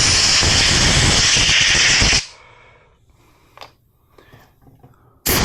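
A compressed-air blow gun blasting air through the lawn mower carburetor's passages to clear them. The loud hiss cuts off about two seconds in, there are a few faint clicks of the parts being handled, and a second blast starts abruptly near the end.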